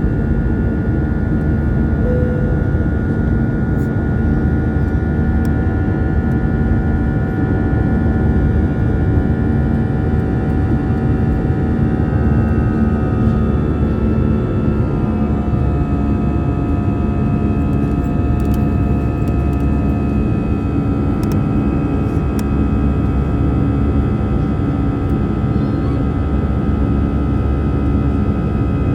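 Cabin noise of an Airbus A320 in flight: the jet engines and rushing air make a loud, steady drone with several tones over it. About twelve seconds in, the engine tones shift slightly lower.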